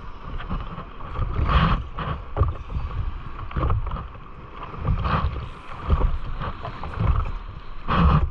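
Seawater lapping and slapping against a surfboard in about five short surges, a second or two apart, with wind rumbling on the microphone.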